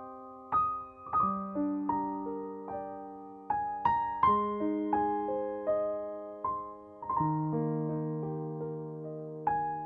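Background music: slow, gentle piano, single notes and chords struck one after another and left to fade.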